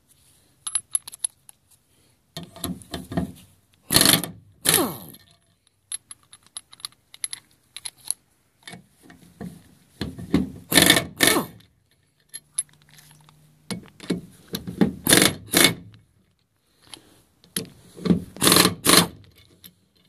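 Impact wrench loosening the nipple cup lock nuts on a Ford 6.0L Power Stroke high-pressure oil rail. It runs in four pairs of short bursts, one pair per nut, with light metallic clinks of the socket on the nuts between them.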